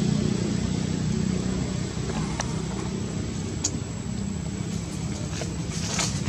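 A steady low engine hum, with a couple of faint clicks.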